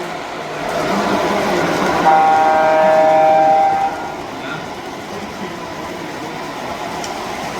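Train horn sound effect from an interactive model railroad layout: one steady chord-like blast lasting nearly two seconds, starting about two seconds in, over steady background noise.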